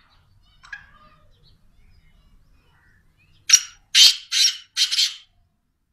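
Caged black francolin calling: a faint short note, then a harsh call of four loud, grating notes in quick succession over about a second and a half near the end.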